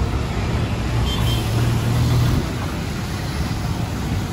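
A car on the move: a steady low engine and road rumble.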